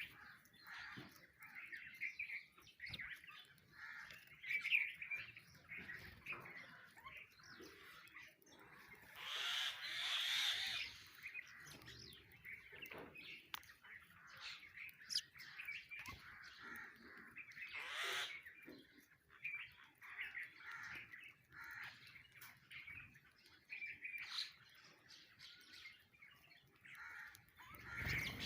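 Sparrows chirping continuously at a feeding spot, mixed with harsher squawks from other birds such as mynas. A louder harsh call about ten seconds in, and a quick call sweeping down in pitch a little past halfway.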